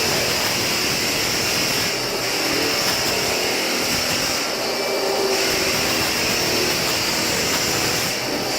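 Hardwood floor sanding machine running steadily, a loud even whir with a hum that shifts slightly a few times.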